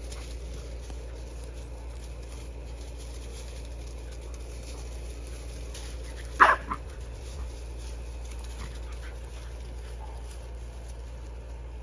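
A French bulldog puppy gives one sharp, high yelp during rough play about six seconds in, followed by a shorter second yelp. Faint rustling of paws on dry leaves is heard around it.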